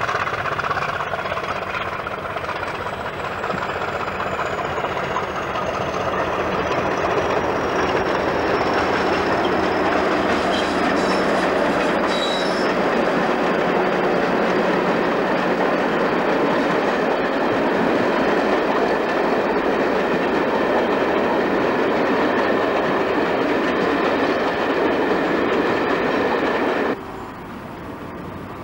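British Rail Class 50 diesel locomotive, with its English Electric 16-cylinder engine, passing with a train of passenger coaches: a steady, loud mix of engine and wheels on rail. A thin high whine slowly falls in pitch over the first dozen seconds. Near the end the sound cuts abruptly to a quieter rumble as another Class 50 approaches.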